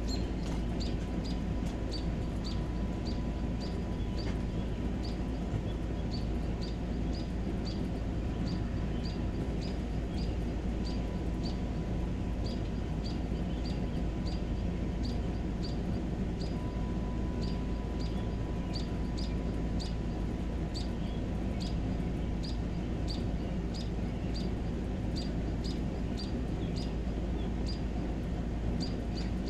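Evening outdoor ambience: a small animal gives a short high chirp over and over, evenly, about twice a second, over a constant low rumble. No thunder is heard.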